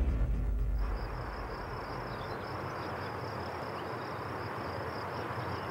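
Steady high insect chirring over an even outdoor hiss, coming in about a second in as a low rumble dies away.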